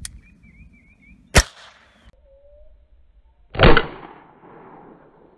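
Smith & Wesson M&P 15-22 .22 LR rifle fired into a car windshield from almost point blank. A sharp crack comes about a second and a half in, then a louder shot a couple of seconds later whose echo trails off over about a second.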